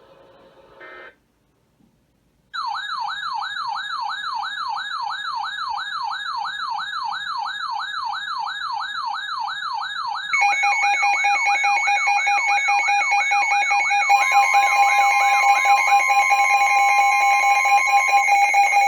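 Electronic alert tones. After a brief silence, a fast warbling siren-like tone rises and falls about five times a second. About ten seconds in, steady high alarm tones take over and more tones pile on top.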